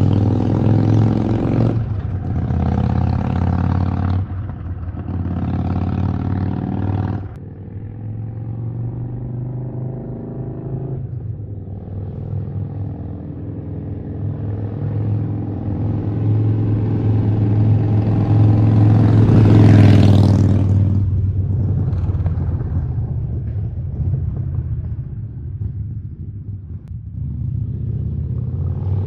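Harley-Davidson Sportster Roadster's 1200 cc V-twin running through a Vance & Hines aftermarket exhaust, idling with a deep rumble. In the first seven seconds it is blipped several times in quick succession. It then revs up gradually to a peak about twenty seconds in and drops back to idle.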